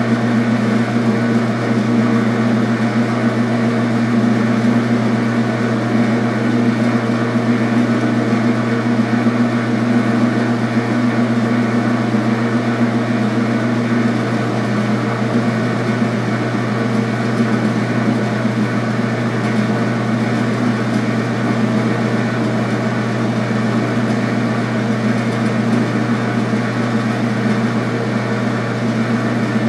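Metal lathe running with a steady motor-and-gear hum, its chuck spinning a quarter-inch steel rod while a cutting tool takes a relief cut in it.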